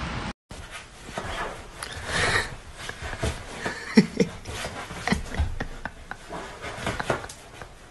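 A fluffy puppy scrabbling at a fabric sofa, its claws scratching and rubbing the cushions in irregular bursts, with two short vocal sounds about four seconds in.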